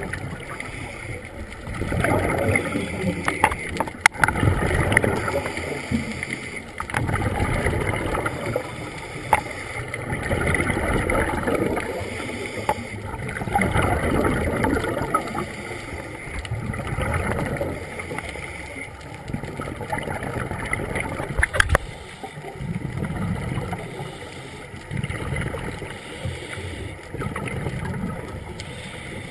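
Scuba breathing through a regulator, heard underwater: exhaled bubbles rush out in bursts about every three to four seconds, with a few sharp clicks in between.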